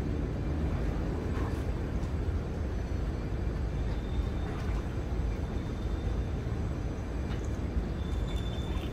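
Steady low rumble of city background noise with no distinct events.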